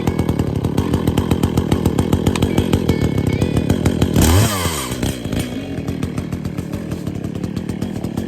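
Echo CS-400 two-stroke chainsaw running at idle just after a cold start. It is revved once about four seconds in, then drops back to idle.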